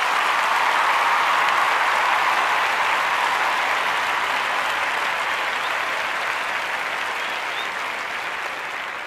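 Crowd applauding and cheering, slowly dying down.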